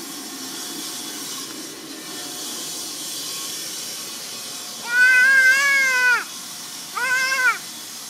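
Two drawn-out, high-pitched vocal calls, a longer one about five seconds in and a shorter one a second later, each dropping in pitch at its end, over a steady hiss.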